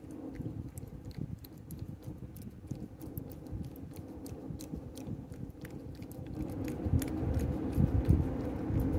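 A cat licking a paste treat (Churu) from a small dish: quick wet tongue clicks and smacks, growing louder over the last few seconds, over a low steady hum.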